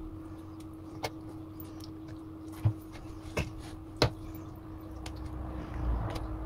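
Metal spoon clicking and knocking against a round metal baking pan several times while spreading a thin batter, then a softer scraping of the spoon through the batter near the end. A steady low hum runs underneath.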